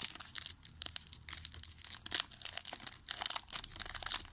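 A trading-card pack wrapper being torn open and crinkled by hand: an uneven run of sharp crackles.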